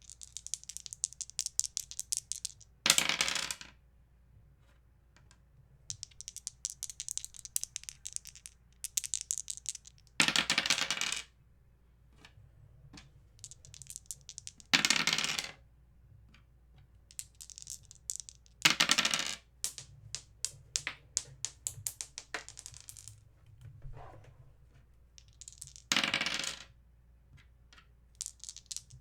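Dice rolled over and over, each throw a dense clatter about a second long as they tumble to a stop, about six throws in all. Between the throws there is lighter, scattered rattling of the dice.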